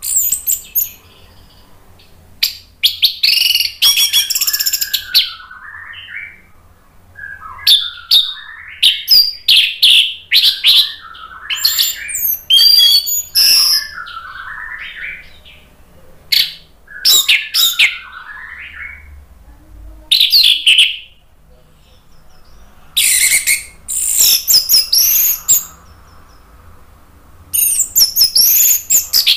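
Orange-headed thrush singing in full voice: repeated bouts of loud, rapid, high whistles and chatter, with softer lower warbling between bouts and short pauses.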